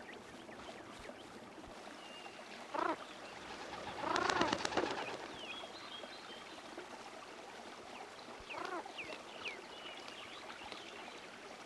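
Pigeons calling in three short, pitched calls. The loudest, about halfway, comes with a quick flurry of wingbeats. Faint high chirps of small birds sound between the calls.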